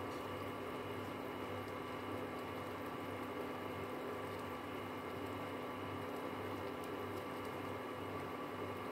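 Steady electric hum and fan noise from an induction cooker, with a low hum that swells and fades about every two-thirds of a second.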